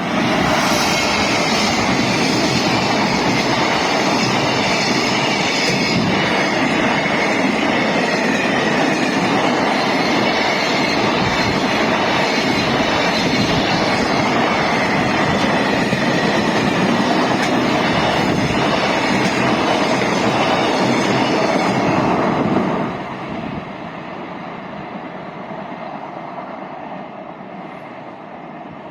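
Freight train passing close by at a level crossing: a loud, steady rush of wagons rolling over the rails, with a faint high whine that slowly falls in pitch. About 23 seconds in the last wagon passes and the sound drops abruptly to a fainter, fading rumble.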